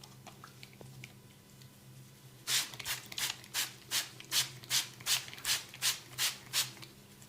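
Massage hands rubbing briskly in a rhythmic run of about a dozen strokes, about three a second, starting a couple of seconds in after a few faint small clicks.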